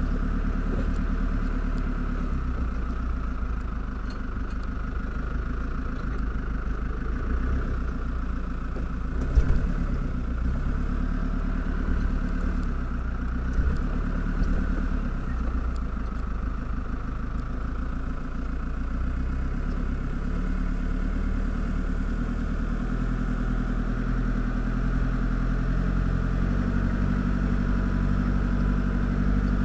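Safari game-drive vehicle's engine running steadily as it drives slowly off-road through tall grass, with two sharp knocks from jolts over the ground, about nine seconds in and again around thirteen.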